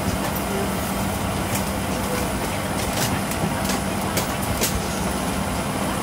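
Steady hum and air hiss of an airliner cabin, a Boeing 737-900ER, with a low constant drone and a few sharp clicks.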